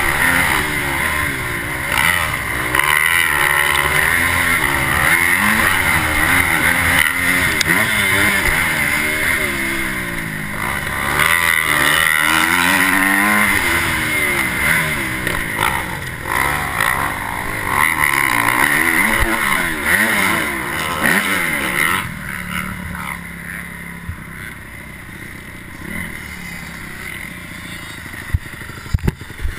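Honda motocross bike's engine, heard from the rider's helmet, revving hard up and down through the gears. About 22 seconds in it drops to a quieter, steadier running as the bike slows, with a few sharp clicks near the end.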